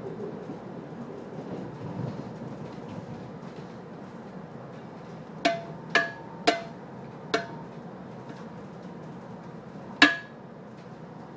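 Inside a moving S-Bahn train: the carriage's steady running rumble, with sharp knocks that ring briefly. Three come about half a second apart a little past the middle, a fourth follows a moment later, and a last, loudest one comes near the end.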